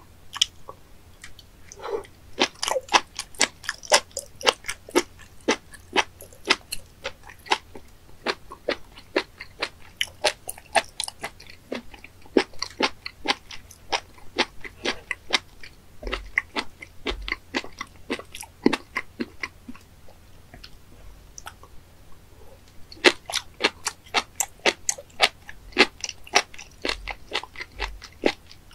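Close-up chewing of raw spoon worm (fat innkeeper worm) sashimi: rapid crisp crunches, several a second, in runs with short lulls between mouthfuls.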